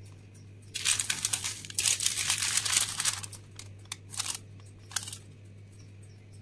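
Baking paper crinkling and rustling in a run of crackles from about a second in, with a few last crackles near five seconds, over a steady low hum.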